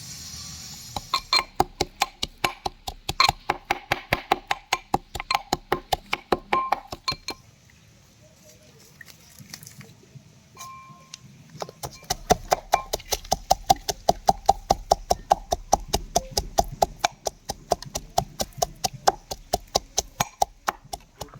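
Rapid metallic clinking, about five strikes a second, each with a short ring, in two long runs with a pause between.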